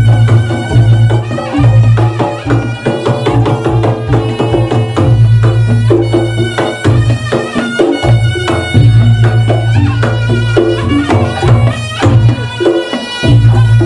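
Reog Ponorogo gamelan music: rapid kendang drumming and struck percussion under a held, reedy slompret-style melody, with a steady low tone that drops out briefly a few times.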